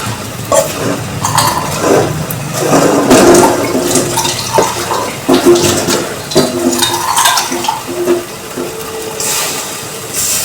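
Water sloshing and bubbling in a pot while the noodles are stirred, with irregular splashes and knocks all through.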